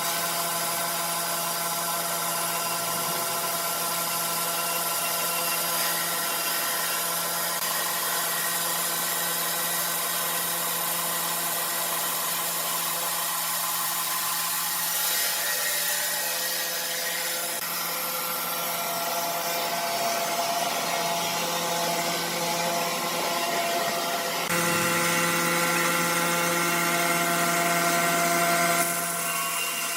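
Sawmill saw running and cutting wood: a steady machine whine of several held tones over a rasping hiss. It steps up louder about 25 seconds in and eases off shortly before the end.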